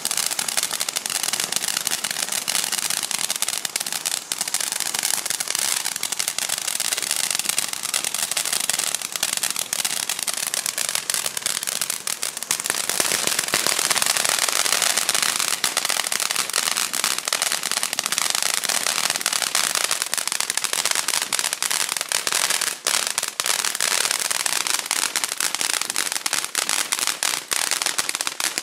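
Dancing Fireworks DXF015 cylindrical ground fountain burning: a continuous rushing hiss from its spark jet, thick with dense crackling pops. About 13 seconds in, the hiss grows louder and sharper, then carries on.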